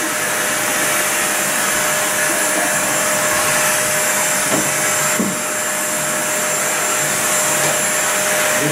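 A small electric motor running steadily, with a constant whine over a rushing hiss.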